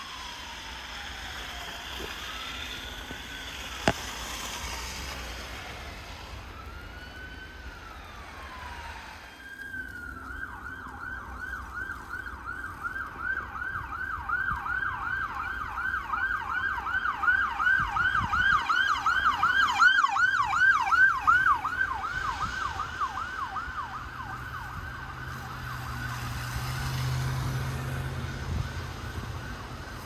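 Police sirens of a motorcade escort passing: a slow wail that switches about nine seconds in to a fast yelp, about three to four sweeps a second. The yelp grows louder, then fades after about 22 seconds.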